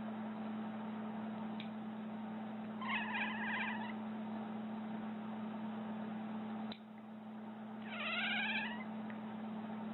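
A domestic cat meowing twice, a wavering call about three seconds in and another about eight seconds in, over a steady low hum.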